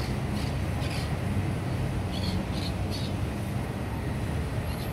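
Steady low outdoor rumble, with a small bird chirping several short times over it.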